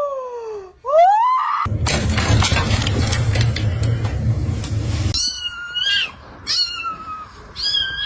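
Cats meowing: a long falling meow, then a short rising one. Then comes a stretch of loud rumbling noise, and after it several short, high-pitched mews.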